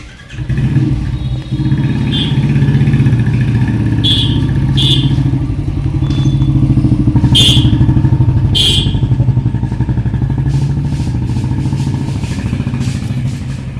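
A small engine running steadily close by, with a rapid even pulsing beat, and a few short high-pitched blips over it.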